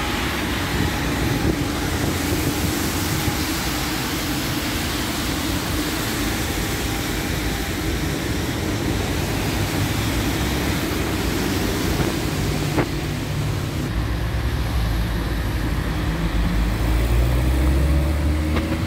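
City traffic on a rain-wet street: a steady hiss of tyres on wet asphalt with car engines passing, and a low engine rumble that grows louder over the last few seconds as a vehicle comes close.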